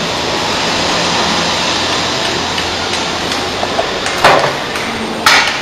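Steady background noise, with two sharp knocks about a second apart near the end.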